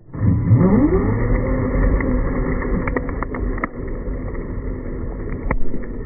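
Traxxas Rustler RC car's motor revving up hard from a standstill, its whine rising in pitch over the first second and then held high as the wheels spin in a burnout, with a few sharp clicks and ticks in the middle and near the end.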